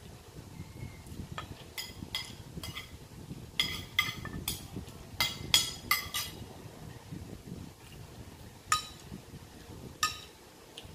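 A metal spoon clinking and scraping against a glass baking dish of stew. A run of sharp, briefly ringing taps fills the first six seconds, then two more follow later. Soft chewing and handling noise runs underneath.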